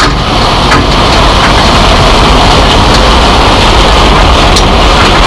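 Combine harvester running steadily: a loud, continuous low machine drone with a couple of light clicks over it.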